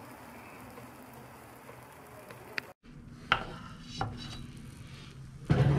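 Steady sizzling hiss from a just-baked pizza in a hot oven. After a cut, a few knocks from the metal pizza pan on a wooden board, then a louder clatter of the pan near the end.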